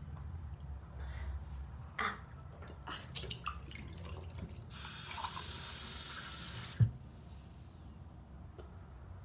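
A few light handling clicks and knocks, then water running from a tap in an even hiss for about two seconds, cut off by a single sharp thump.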